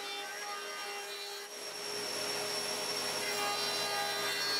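Benchtop jointer running with a steady whine, its cutterhead planing the edge of a walnut board. It grows louder and rougher about a second and a half in as the cut bites.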